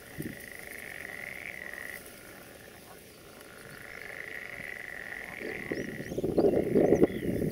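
Pond frogs calling in long, high trills a couple of seconds each with short gaps between. In the last two seconds a louder rustling noise comes in over them.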